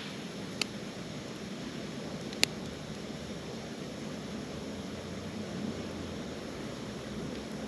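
Small wood fire burning in a B6-kun compact folding fire grill: a steady hiss with two sharp crackling pops, a faint one just after the start and a louder one about two and a half seconds in.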